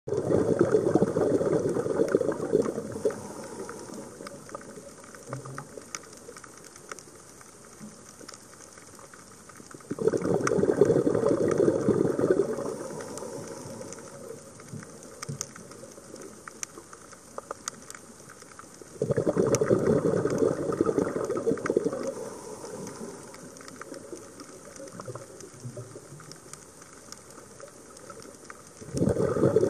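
A diver's scuba exhalation: bursts of bubbles rush out of the regulator about every nine to ten seconds, each lasting two to three seconds. Between the bursts it is quieter, with faint scattered clicks.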